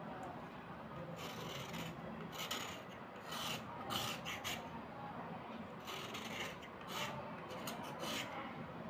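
White slate pencils being scraped by hand, a dry, gritty rasping in short, irregular strokes that come in several clusters.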